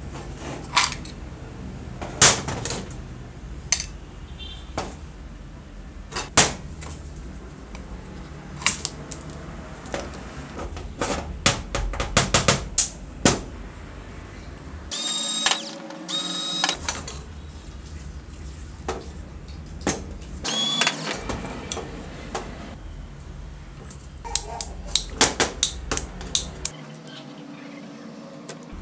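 Small metal drill parts and hand tools clicking and knocking against a metal workbench and each other as an old Hitachi electric drill is taken apart by hand. There are many separate sharp clicks, with two louder, harsher noisy bursts of a second or two near the middle.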